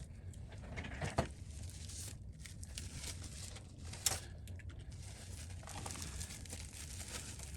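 Faint crinkling and rustling of plastic film or packaging, with scattered small clicks and two sharper ones, about a second in and about four seconds in, as replacement iPad screen parts are handled.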